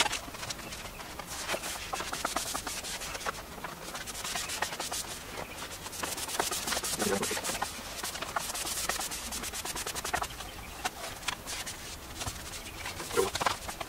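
Light adhesive-backed poster-map paper crackling and rustling as its backing is peeled away, with repeated rubbing strokes of a squeegee-style applicator smoothing the paper onto the desk surface.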